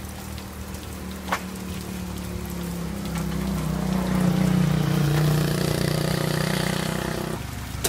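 A motor vehicle's engine running, growing louder through the middle and then cutting off sharply near the end, over the hiss of rain.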